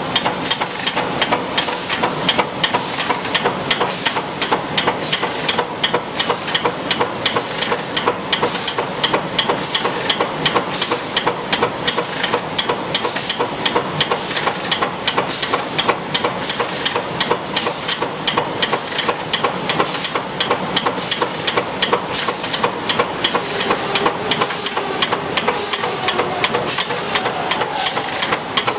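Automatic spot welding machine for fan-guard inner rings running, with a steady hiss and regular sharp bursts about two to three a second, and a faint high squeal near the end.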